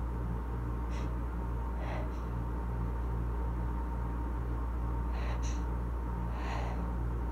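A few faint, short breaths from a person with asthma, over a steady low hum.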